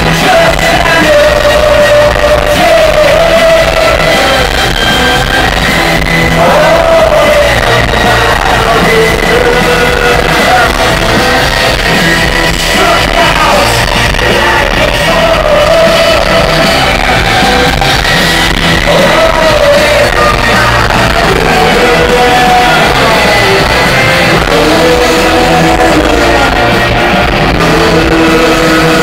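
Rock band playing live with a lead vocalist singing over guitars, drums and keyboards, loud and echoing in a large concert hall as heard from within the audience.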